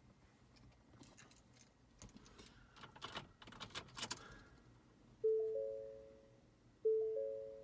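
Keys jangling and clicking for a few seconds, then the Ford F250's dashboard warning chime, a bright chord of a few tones that rings out and fades, sounding twice about a second and a half apart once the ignition is switched on.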